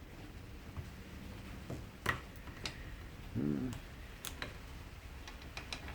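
Scattered sharp metal clicks and taps of hand tools (nippers, pliers) working a stub of copper wire that is welded into a small electric motor, with a quicker run of clicks near the end. A brief low vocal grunt comes about halfway through.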